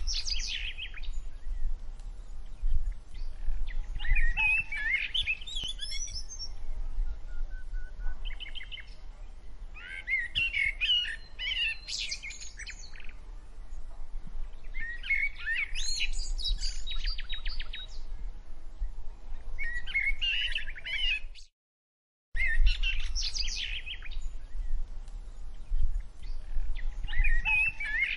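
Birds chirping and trilling in repeated bursts over a low steady rumble; the sound cuts out completely for under a second about three-quarters of the way through, then resumes.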